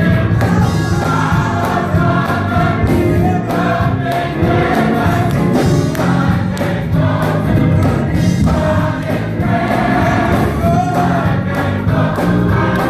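Gospel choir singing, with instruments keeping a steady beat.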